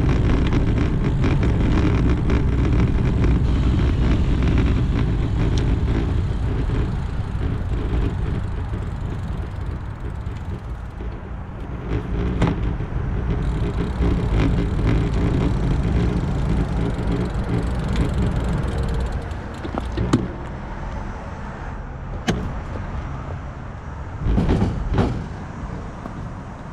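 Riding noise of a Specialized Roubaix SL2 road bike heard from a handlebar camera: a steady low rumble of wind and tyres rolling over rough asphalt that quietens as the bike slows to a stop. Several sharp clicks and knocks come in the second half, the loudest near the end.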